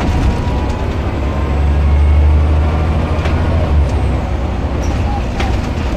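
Scania L94UB bus engine and ZF automatic gearbox running under way, heard from inside the saloon: the low engine rumble swells through the middle and drops back about four seconds in, with a couple of light clicks.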